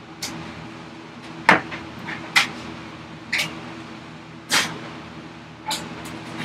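Japanese Gyokucho razor saw cutting across the grain of a thick wooden block with its cross-cut teeth: about six short rasping pull strokes, roughly a second apart. A faint steady hum sits underneath.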